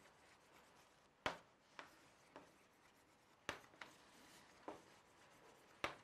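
Chalk writing on a chalkboard: faint rubbing strokes broken by sharp taps as the chalk strikes the board, about seven in all at irregular intervals, the loudest about a second in and near the end.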